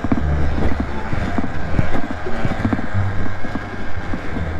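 Riding lawn tractor engine running while the mower is driven down a rough road, its pitch shifting as it goes, with frequent rattles and knocks from the machine over the road surface.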